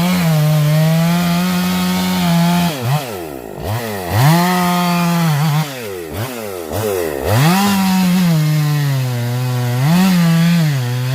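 Husqvarna two-stroke chainsaw running at high revs while cutting wood. Between about three and seven seconds in, the engine speed drops sharply and winds back up several times as the throttle eases off and comes back on.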